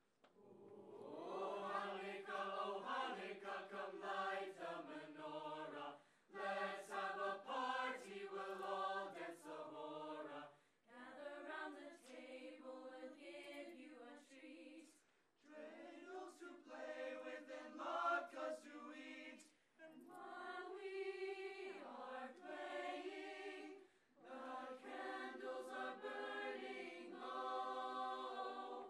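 Mixed-voice high school madrigal choir singing together in chords. The singing comes in phrases of about four to five seconds, with short breaks between them.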